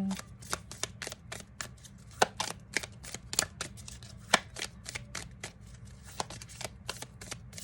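A deck of tarot cards being shuffled by hand: a quick, uneven run of crisp card snaps and flutters, several a second.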